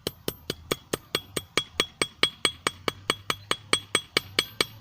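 Hand hammer striking hot steel on a small 25 lb anvil in quick, even blows, about four to five a second, each with a bright metallic ring: a screw being forged out into a blade. A faint low drone of a distant lawnmower runs under the later blows.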